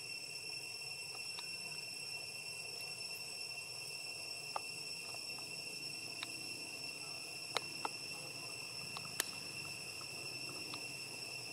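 Steady, unbroken high-pitched insect drone in one constant tone, with a few sharp clicks scattered through it.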